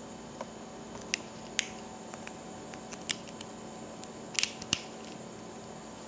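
A handful of brief, sharp plastic clicks and handling noise as an HDMI cable's plug is fitted into the HDMI socket of an MHL adapter.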